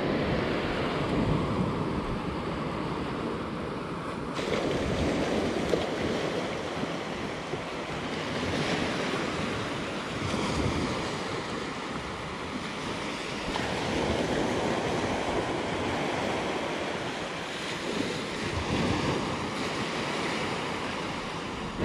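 Small waves breaking and washing up on a sandy beach, the rush of surf rising and falling every few seconds.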